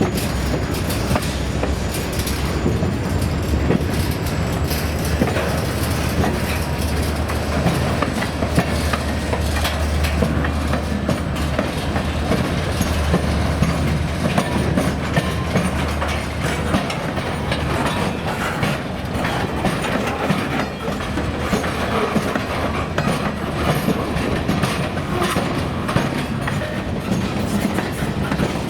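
Freight train cars rolling past, their wheels clattering over the track in a constant stream of clicks. A low rumble underneath eases off about two-thirds of the way through.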